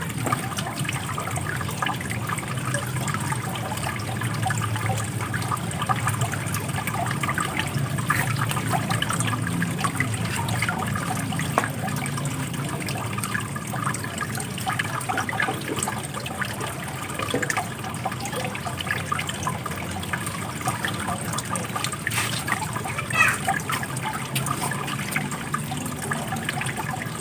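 Water running and splashing steadily, with many small splashes and trickles through it. A brief higher sound stands out a little before the end.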